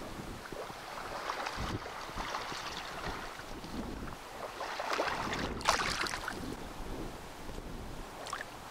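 Small waves lapping and splashing in shallow water, with wind noise on the microphone; a sharper, louder splash comes about five and a half seconds in.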